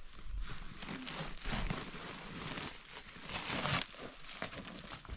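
Hands scraping and scooping loose, dry soil, and a fabric sack rustling as it is handled and pulled open, in uneven bursts of rustle, loudest a little after three seconds in.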